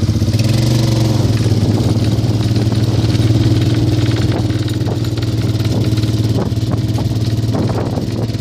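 Polaris Sportsman 500 ATV's single-cylinder four-stroke engine running at low, steady speed while it is ridden. It gets louder at the start, then holds an even note.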